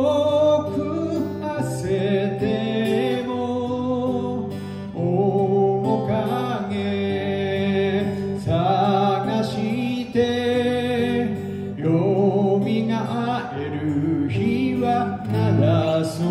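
A man singing a slow song with vibrato, in phrases a few seconds long, accompanying himself on an acoustic guitar.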